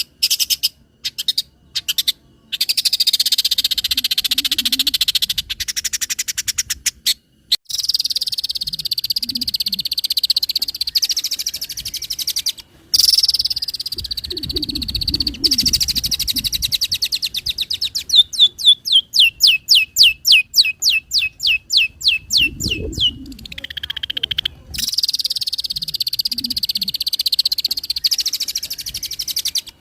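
Long-tailed shrike singing a fast medley of mimicked calls: long runs of rapid chattering broken by short pauses, a quick series of about eight sharp notes a second midway, and a falling note after it.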